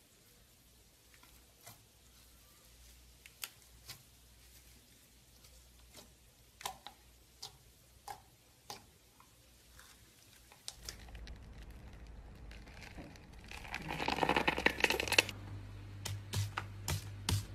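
Slime being pressed and kneaded by fingers, giving sparse soft clicks and pops at first. After about eleven seconds a faint steady hum comes in, and a different slime in a tub is pressed and poked, with a dense burst of crackling pops a few seconds later, then a few separate pops near the end.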